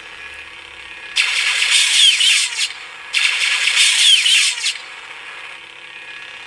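Lightsaber sound board playing its effects through a small speaker: a low steady saber hum, broken twice by loud hissing crackles with falling whistling sweeps, each lasting about a second and a half.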